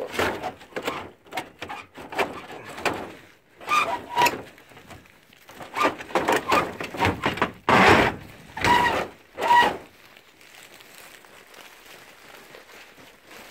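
Plastic tarp and greenhouse cover being handled and pulled open, rustling and crinkling in a string of irregular bursts, loudest about eight seconds in, settling to a quieter steady noise from about ten seconds on.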